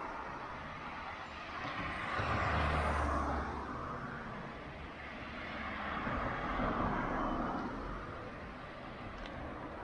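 Road traffic: vehicles passing along the street. Two passes are loudest, one about two to three seconds in with a deep rumble, and another about six to seven seconds in.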